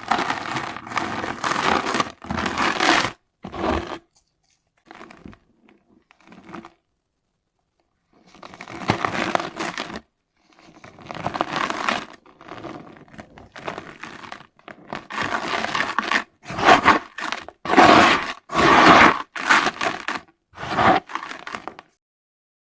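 Dry, gritty red dirt clumps being crumbled, in a series of crunchy, gritty bursts with a pause of a couple of seconds about a third of the way through.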